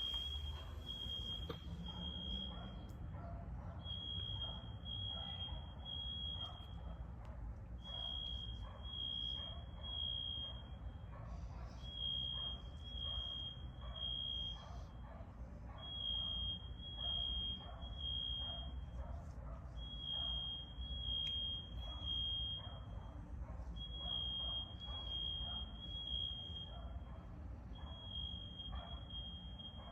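Fire alarm sounding a high-pitched beep in the temporal-three evacuation pattern: three beeps, then a pause, repeating about every four seconds over a steady low background rumble.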